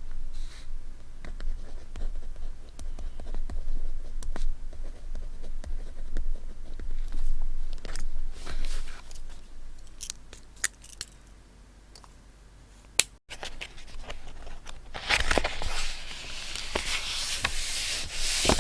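Close-up paper-crafting sounds from scrapbooking: scattered light clicks and taps with short rustles of paper, then a longer, louder stretch of paper rustling and scraping over the last few seconds.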